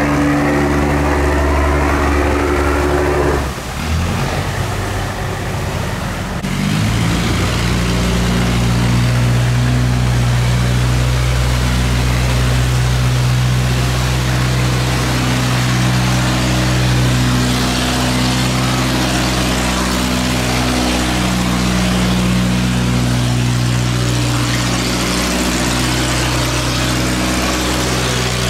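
A boat engine running steadily. About four seconds in the sound breaks off and changes, and from about seven seconds another steady engine runs over a hiss.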